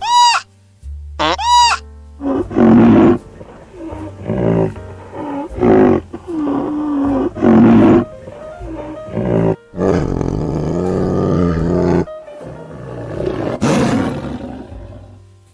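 Animal calls: two short high calls at the start, then a run of loud, deep calls, one every second or so, some drawn out and rough.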